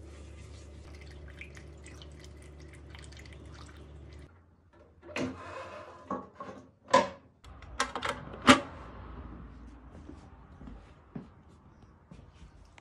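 Hand sanding on a painted motorcycle fuel tank: light scrubbing strokes over a low steady hum. After a short drop-out, a run of sharp knocks and clunks, the loudest in the second half.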